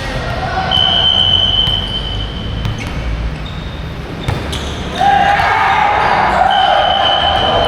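Indoor volleyball play on a gym court: ball impacts, long high sneaker squeaks on the floor, and from about five seconds in a loud burst of players' and spectators' shouting.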